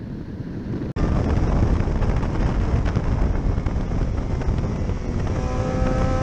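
Wind rushing over a motorcycle-mounted camera at speed. About a second in, it cuts to a sport bike on a race track: loud wind buffeting with its engine running underneath, and a steady engine note coming through clearly near the end.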